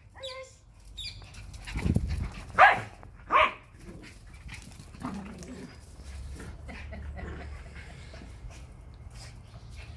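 Schipperke dogs barking during play, with two loud sharp barks less than a second apart near the middle and a few fainter ones around them. A low rumble comes just before the loud barks.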